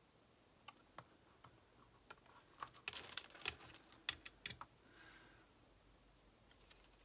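Faint scattered taps and clicks of a small card box-bag and a craft tool being handled and set down on a craft mat, with a cluster of clicks in the middle.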